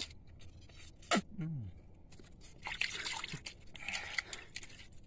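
Shallow seawater dripping and splashing as sea urchins are handled by hand, with a patch of scratchy crackling from shells and water from about two and a half to four and a half seconds in. A short falling tone sounds about a second in.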